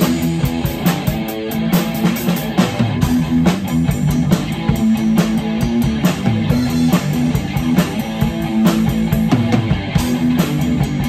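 Live rock jam: a drum kit with cymbals played in a steady beat under sustained notes from an amplified electric guitar.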